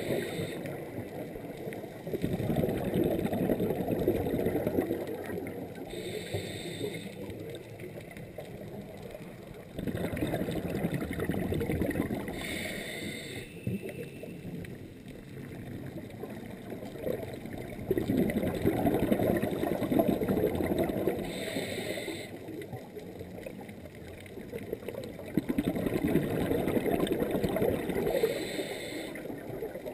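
Scuba diver's regulator breathing underwater: a short hiss of inhaling through the regulator and a longer burst of bubbling as the exhaled air escapes, repeating about every seven to eight seconds.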